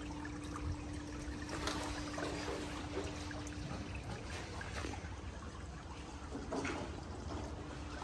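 Water trickling and splashing, with a few louder splashes scattered through, over a steady low hum that stops about four seconds in.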